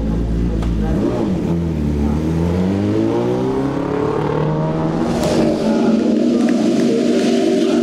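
BMW M1000RR superbike's inline-four engine pulling away, its pitch climbing over about three seconds and then holding steady.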